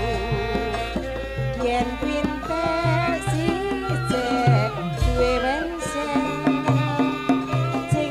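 Javanese gamelan music accompanying a wayang kulit song: a sinden's wavering solo voice over repeated kendang drum strokes and a deep sustained low tone, which fades about five seconds in and then sounds again.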